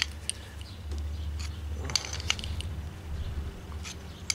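A small wrench tapping and clicking against a brass fitting as it is threaded and tightened into the port of an electric fuel pump: a handful of sharp, irregular clicks over a steady low hum.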